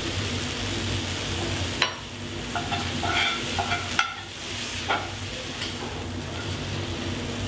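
Farro and forbidden rice sizzling in duck fat in a cast iron skillet while a spoon stirs them, knocking sharply against the pan a few times.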